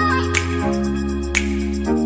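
Background music: sustained soft chords with a light percussive strike about once a second.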